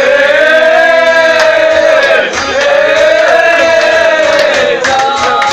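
A group of men chanting in unison in two long held notes, with faint rhythmic beats behind them.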